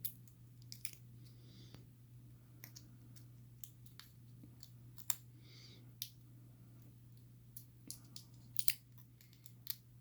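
Small, sharp metal clicks and taps, irregular and a dozen or so over the stretch, from handling a pin-tumbler lock and a thin lock shim, over a steady low hum.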